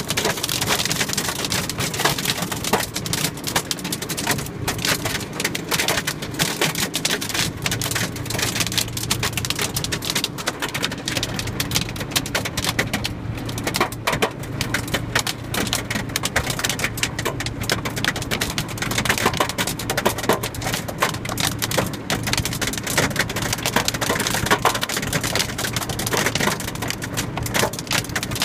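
Hailstones pelting down on a car and the paving around it, heard from inside the car: a dense, steady rattle of countless small hits.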